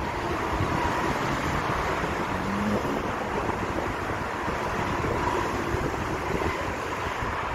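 A Deutsche Bahn ICE electric train passing close below, giving a steady rolling rush of wheels on rail with a faint hum.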